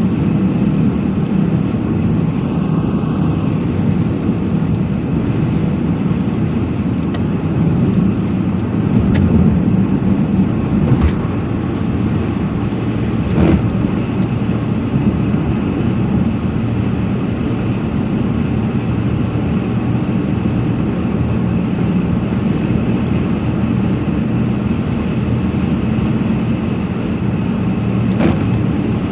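Steady low rumbling noise, with a few faint brief knocks.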